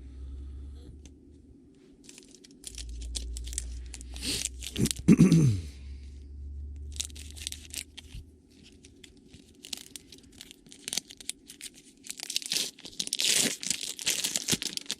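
A trading-card pack wrapper being torn open and crinkled, with repeated rustling as it is handled. About five seconds in comes a loud, brief sound that drops sharply in pitch.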